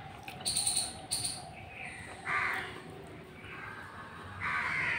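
A crow cawing twice, harsh calls about two seconds apart, after two short high chirps near the start.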